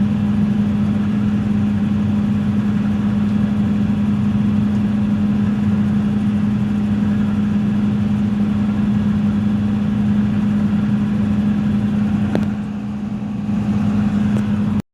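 Hitachi Zaxis 210-5G excavator's diesel engine running steadily with a constant hum. About twelve and a half seconds in there is a click and the sound drops a little for about a second before returning, then it cuts off suddenly.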